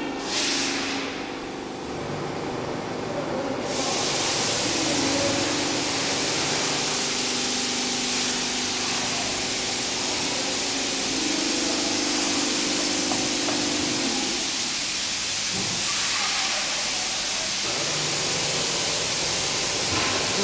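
Air spring moulding press giving off a loud, steady hiss that starts about four seconds in, after a brief hiss at the very start, with a low hum coming and going underneath.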